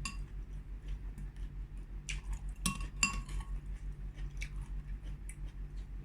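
Spoon clinking against a bowl while eating, with two sharp ringing clinks about three seconds in and a few lighter taps, over a steady low hum.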